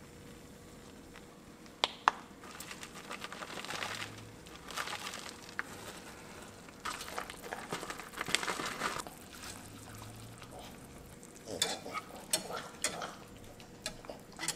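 A utensil stirring a simmering butter-and-cream sauce in a skillet, with scattered scrapes. There are two sharp clinks about two seconds in and a run of clinks against the pan near the end.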